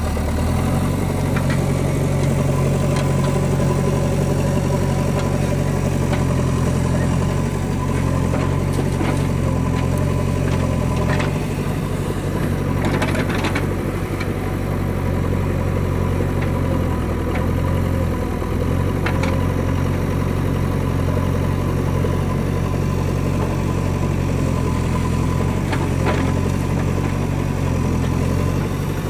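JCB backhoe loader's diesel engine running steadily, its speed rising and falling several times as it works, with a few short knocks and clatters.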